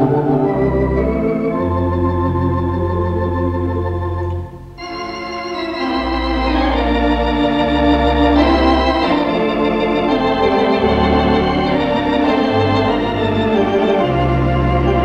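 Four-manual, fourteen-rank Wurlitzer theatre organ playing held chords over stepping pedal bass notes, with a brief break about four and a half seconds in before the playing resumes. The sound is heard through an off-air mono tape recording of the radio broadcast.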